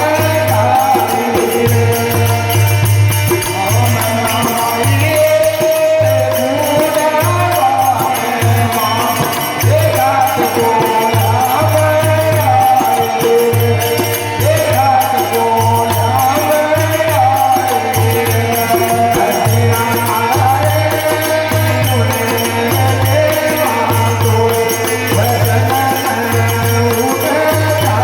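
Rajasthani devotional bhajan: singing in a chanting folk style over a steady, pulsing low drum beat and fast rhythmic percussion.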